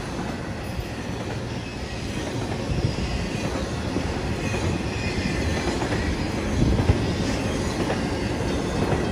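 Double-stack intermodal container cars of a freight train rolling past: a steady rumble and clatter of steel wheels on rail, with a few sharper knocks.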